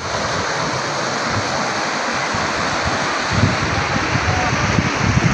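Floodwater rushing fast through a breach in a road embankment: a loud, steady rush of water. From about three seconds in, uneven gusts of wind buffet the microphone.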